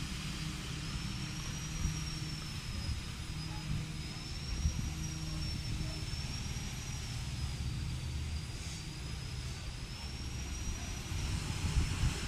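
A steady low rumble with a hum in it, like an engine running, under a thin high whine that wavers slowly up and down in pitch.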